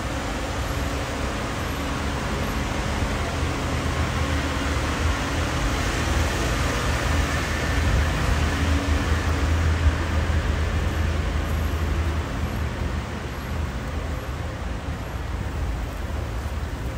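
Road traffic rumbling, growing louder through the middle as a vehicle goes by, then easing.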